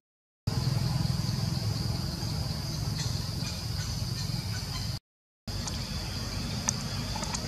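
Forest ambience: a steady low rumble with a constant high insect drone above it and a few faint clicks, broken twice by short drops to total silence.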